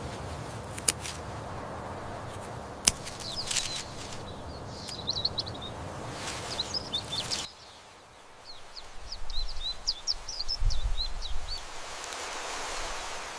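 Small birds chirping over a steady outdoor hiss, with two sharp clicks in the first three seconds. About halfway through, the background hiss drops away suddenly while the chirping goes on.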